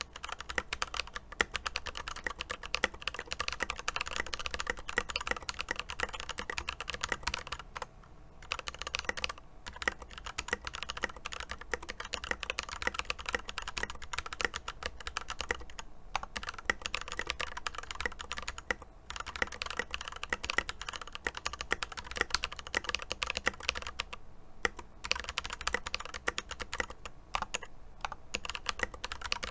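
Continuous fast typing on an Epomaker EP84 mechanical keyboard with lubed Glorious Panda tactile switches and double-shot Tai-hao keycaps, a dense run of keystroke clacks broken by a few brief pauses.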